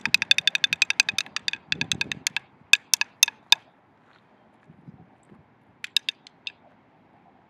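Wooden drumsticks clicked against each other in a fast run of about ten sharp clicks a second. After about two seconds the run breaks off into four single clicks, then a few more clicks come in a quick cluster near the end.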